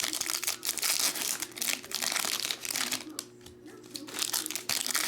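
Foil trading-card pack wrappers crinkling and cards being handled, in irregular bursts with short lulls.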